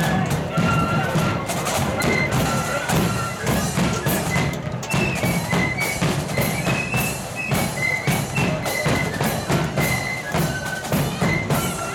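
Marching flute band playing: flutes carry a high melody over a steady drum beat.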